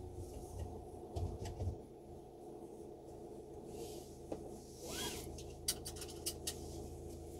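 Steady low hum of idling vehicle engines on a car-carrying rail wagon, with a few dull knocks after about a second and a quick run of sharp clicks a little past halfway.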